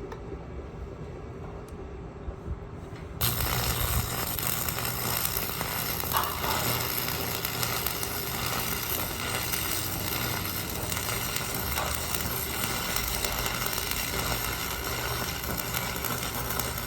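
Electric arc welding: a steady sizzling crackle with a low buzz starts abruptly about three seconds in and runs for about fourteen seconds, stopping right at the end.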